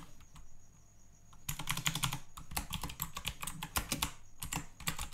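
Typing on a computer keyboard: a few keystrokes, a pause of about a second, then a quick, steady run of keystrokes.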